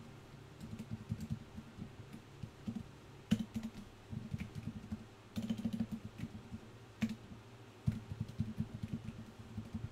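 Typing on a computer keyboard in quick, irregular runs of keystrokes, with a few louder single key presses in between.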